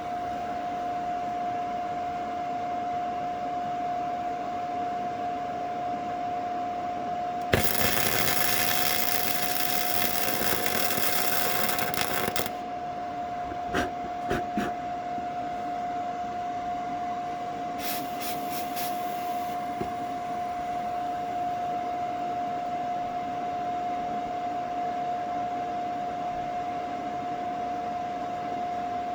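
A 100-volt welder arcing on a Birkin Seven's frame: a crackling hiss for about five seconds, then a second, shorter burst later on, with a few clicks between. A steady high hum runs underneath.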